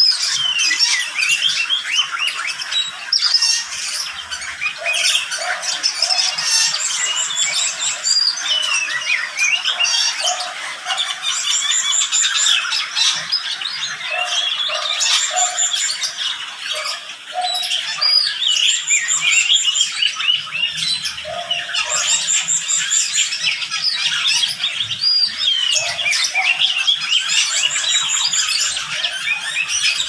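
Many small cage birds in a mixed aviary chirping and twittering over one another. Low cooing notes come in twos and threes every few seconds beneath the chatter.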